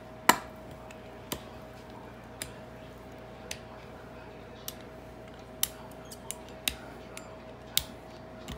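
Pizza-cutter wheel rolling through dumpling dough on a floured mat, giving about a dozen sharp, irregular clicks and taps as it strikes and lifts from the surface, the loudest just after the start. A steady faint hum runs underneath.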